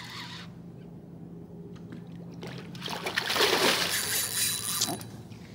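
A hooked fish splashing at the water's surface as it is reeled in, loudest for a couple of seconds from about three seconds in, over a steady low hum.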